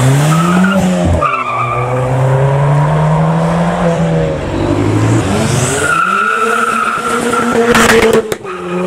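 Ford Fiesta ST engine under hard acceleration, its note climbing, dropping sharply about a second in and climbing again, then falling and rising once more. A short burst of sharp noise comes near the end as the revs fall.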